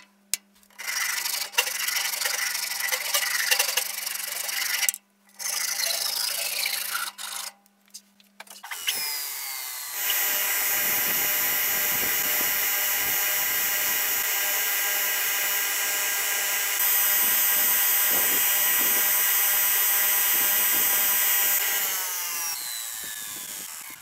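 Sandpaper rubbing in uneven strokes on a wooden drawknife handle spinning on a wood lathe, over a low steady motor hum, for the first nine seconds or so. Then a belt grinder spins up with a rising whine, runs steadily while the wooden handle is sanded against its belt, and winds down with a falling whine near the end.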